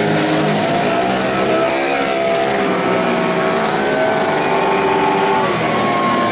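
Several racing scooter engines revving hard as they race, their pitch climbing and dropping together as the riders accelerate and back off through corners.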